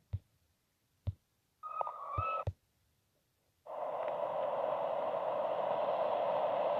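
A few sharp clicks and a short steady beep-like tone in near silence, then a steady rushing hiss starts abruptly about four seconds in and holds: the open-air sound of a trackside recording as a steam locomotive approaches far down the line.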